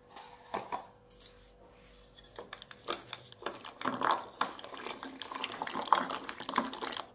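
Traditional wooden hand churner spun back and forth between the palms in a glass bowl, whisking yogurt and gram flour into batter: irregular wet clicks and knocks of the wood against the glass. The churning is sparse at first and grows busier after a couple of seconds.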